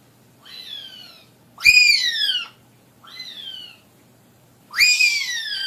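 Pet parrot calling over and over in loud whistled calls that rise and then fall in pitch. Each is followed about a second later by a softer, shorter call that falls in pitch.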